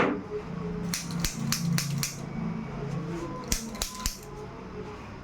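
A quick run of six sharp clicks in about a second, then three more about a second and a half later, over a low steady hum.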